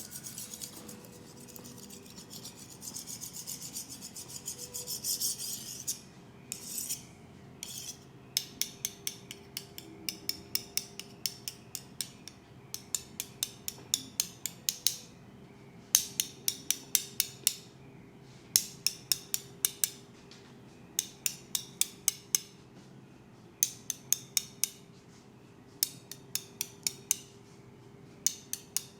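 Steady rubbing for the first few seconds, then repeated runs of quick, light clicks, many clicks to a run, a run about every second or two.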